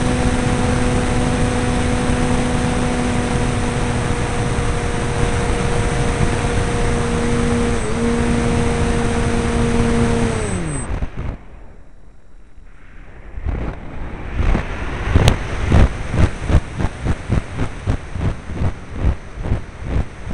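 Onboard sound of a radio-controlled model plane in flight: a steady motor-and-propeller whine over wind rush, which falls in pitch and dies away about ten seconds in. After a few quieter seconds, wind noise returns, pulsing in a fast even rhythm, with one sharp click partway through.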